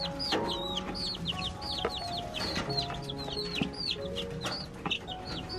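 Young chicks peeping in a wire cage: a quick run of short, high, falling peeps, about three a second.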